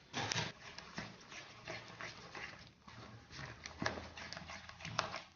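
Spatula stirring thick cheesecake batter in a mixing bowl, with irregular scrapes and knocks against the bowl about twice a second, the loudest near the start.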